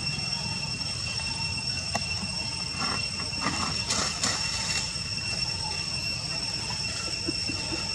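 Steady, unbroken high-pitched insect drone over a low background rumble, with a few brief rustling crackles about three to four seconds in.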